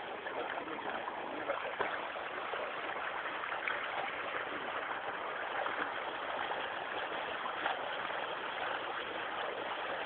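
Steady rush of flowing floodwater, an even noise with faint irregular splashes in it.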